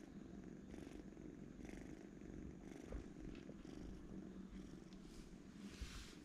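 Kitten purring softly and steadily, the purr swelling with each breath about once a second.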